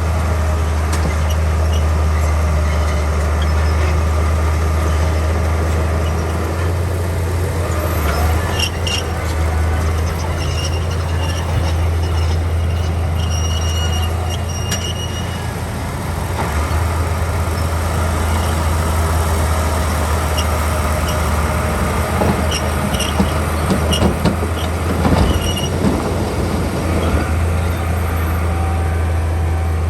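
Heavy diesel earthmoving machinery running steadily with a deep engine drone, and short high squeals and metallic clanks at times.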